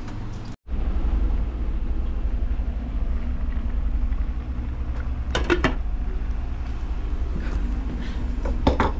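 A steady low rumble, with brief clatters of cookware about five and a half seconds in and again near the end.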